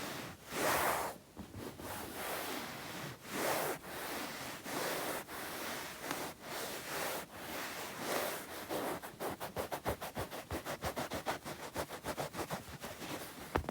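Bare hands rubbing together, palms swishing in slow strokes about a second long. Past the middle this changes to quick, even strokes of about six a second.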